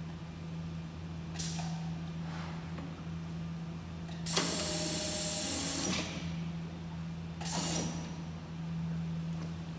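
Industrial side-hemming sewing machine running in a loud burst of under two seconds about four seconds in, with two shorter hissing bursts before and after, over a steady motor hum.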